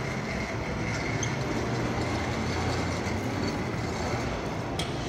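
Steady low machine hum with a faint high-pitched whine over it, and one sharp click near the end.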